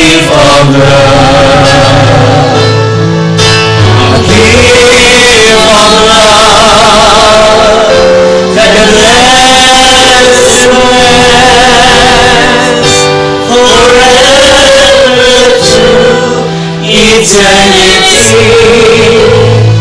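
A worship song with sung vocals over instrumental backing, the voices holding long notes with vibrato.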